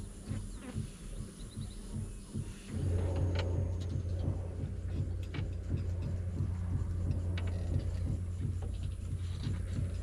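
A low, steady rumble with a rapid pulsing in it, growing suddenly louder about three seconds in and then holding steady.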